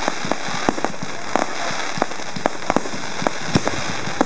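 Aerial fireworks going off: a rapid, irregular run of sharp pops and bangs, about three a second, over a steady hiss, with one louder bang near the end.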